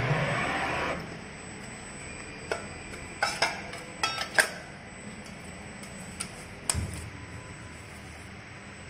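A two-colour pad printer for pans running: a short hiss in the first second, then irregular sharp mechanical clicks and knocks as the pads and ink tray move. A low hum sets in about seven seconds in.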